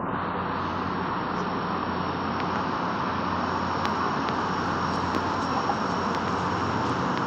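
MBTA commuter rail diesel locomotive running as the train rolls slowly in, a steady engine drone with a low hum. A thin high whine comes in about two seconds in and holds.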